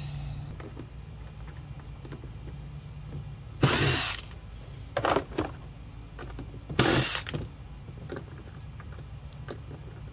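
Cordless drill-driver running in several short bursts, each under a second, backing screws out of a Power Wheels car's plastic body.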